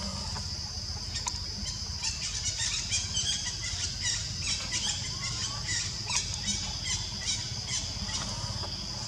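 Tropical forest ambience: a steady high insect drone, with many short chirps and squeaks over it from about two seconds in, and a low rumble underneath.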